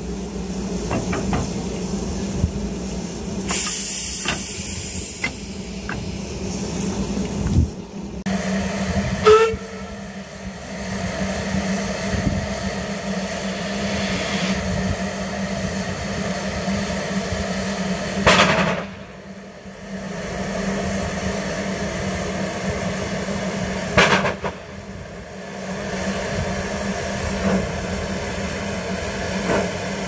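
Narrow-gauge steam train with a steady low hum and hissing steam. A burst of high hiss comes a few seconds in, and several loud clunks follow through the rest of the stretch.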